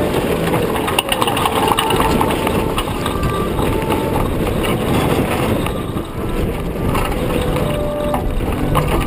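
Wind buffeting the microphone and water rushing along the hull of a sailboat heeled over and moving fast through choppy water, a loud, steady rumbling noise.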